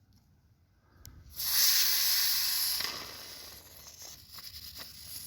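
Aerosol can of expanding gap-filling foam spraying: a sudden hiss about a second in that holds for a second and a half, then trails off fainter.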